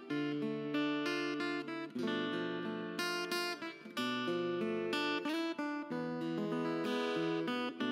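Background music: acoustic guitar playing chords, changing about every second.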